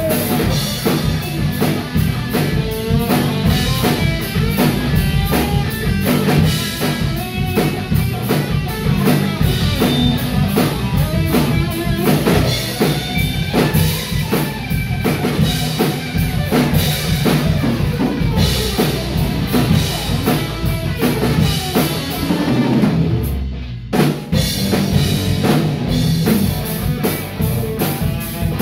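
Live hard rock trio playing an instrumental stretch: distorted electric guitar, electric bass and a drum kit driving a steady beat of kick and snare. About three quarters of the way through, the band stops dead for a split second, then crashes back in.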